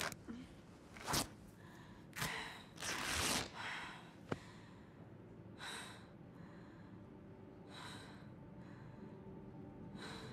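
A woman breathing shakily while holding back tears: sharp gasps and sighing breaths, several close together in the first few seconds and the longest about three seconds in, then single breaths every couple of seconds. A short sharp click comes about four seconds in.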